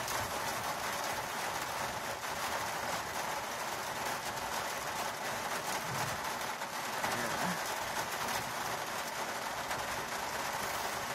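Heavy rain pouring down hard and without letup: a steady hiss.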